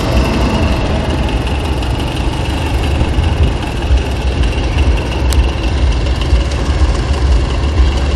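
Steady low rumble of a vehicle on the move, heard from on board, with a single sharp click about five seconds in.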